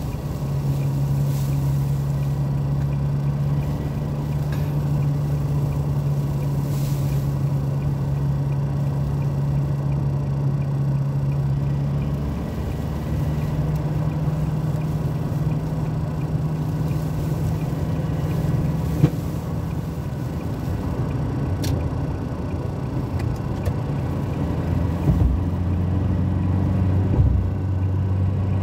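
Car driving at highway speed, heard from inside the cabin: a steady engine drone over road noise, its pitch dropping about 26 seconds in. A few short sharp ticks sound through it.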